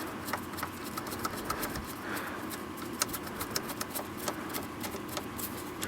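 Light clicking and ticking of a Torx driver backing a T25 screw out of the plastic steering column cover. The clicks come at a fairly even pace at first, then more irregularly.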